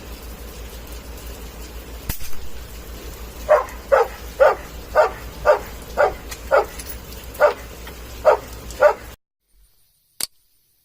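A dog barking about ten times, close to twice a second, over a steady background hum. A single sharp click comes before the barking, and another sharp click follows after the sound cuts off to near silence.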